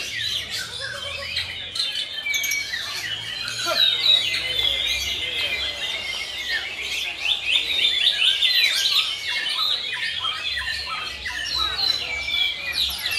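White-rumped shamas (murai batu) singing: a dense run of fast, overlapping whistled and chirping phrases, several birds at once.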